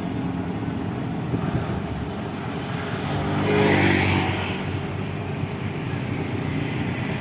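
A bus passes close by, its engine swelling to its loudest about three to four seconds in and then fading back into a steady traffic hum. The engine has no deep snoring growl (no "ngorok").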